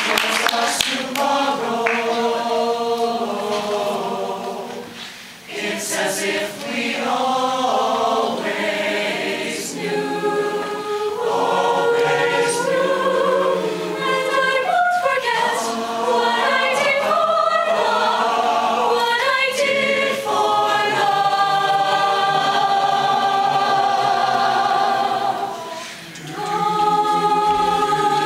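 Mixed-voice choir singing a slow ballad in several-part harmony, with long held chords; the singing thins out briefly about five seconds in and again near the end before settling on a new held chord.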